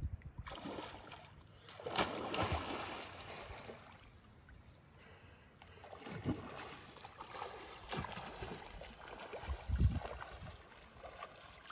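Sea water splashing and lapping as a person wades into the sea and swims, with irregular faint splashes.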